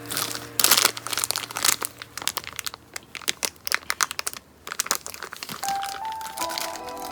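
Packaging wrap being handled, crinkling and rustling in quick irregular bursts, loudest about half a second in. Soft background music runs underneath, with a melody coming in near the end.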